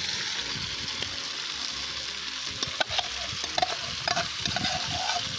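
Onion, carrot, mushrooms and minced meat sizzling in a cast-iron kazan as dry buckwheat is poured in. From about three seconds in, a metal spoon scrapes and taps against the enamel bowl, giving sharp clicks and short ringing pings over the steady hiss.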